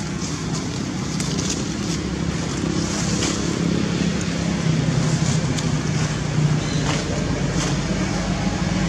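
A steady low engine hum, with scattered small clicks and rustles over it.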